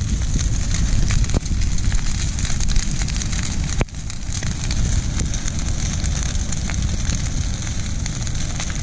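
Brush pile of dry tree limbs burning, crackling with scattered sharp pops over a steady low rumble; one louder pop about four seconds in.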